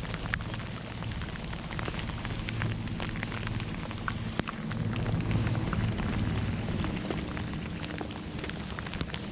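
Heavy rain falling, a dense patter with many sharp drop hits close by, over a steady low hum.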